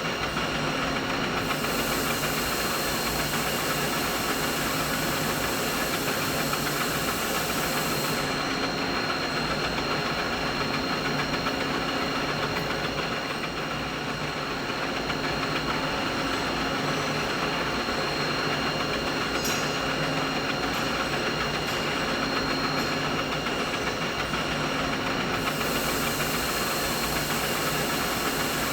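Continuous machinery noise: a dense, steady mechanical drone with several constant tones running through it. A thin high hiss joins about a second and a half in, drops out around eight seconds in, and returns near the end.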